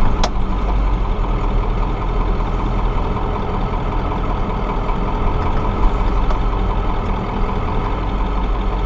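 Old Ford F-250 diesel truck engine running steadily, with a single sharp click about a quarter second in.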